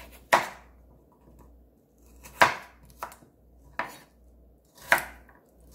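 Chef's knife slicing through a raw carrot and striking a wooden cutting board: five separate crisp chops at uneven intervals.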